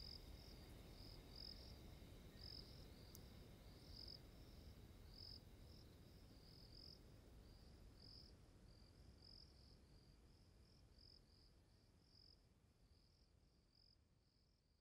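Faint crickets chirping in an even run of short high chirps, about two a second, over low background noise, gradually fading out.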